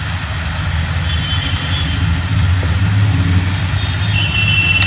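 Oil and spices sizzling in a kadai over a steady low droning hum, with a faint high thin tone about a second in and again near the end.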